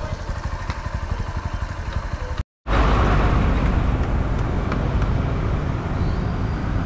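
A motor vehicle's engine running steadily with an even low pulse. The sound breaks off for a moment about two and a half seconds in, then comes back louder.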